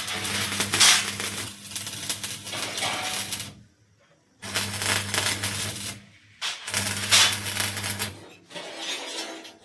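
Arc welding on a window grill: the arc crackles and sputters over a steady electrical hum, in short runs that stop briefly about four and six seconds in.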